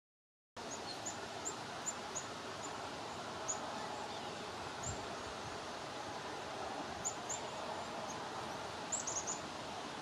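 Short, very high chip notes from small songbirds, scattered singly and then in a quick run of four or five near the end, over a steady outdoor background hiss. The sound comes in abruptly about half a second in, after silence.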